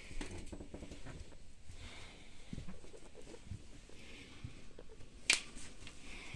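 Faint footsteps and rustling handling noise in a small enclosed space, with one sharp click about five seconds in.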